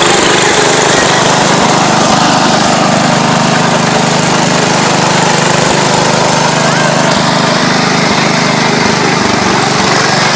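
Massey Ferguson garden tractor's small engine running steadily under load as the tractor drives.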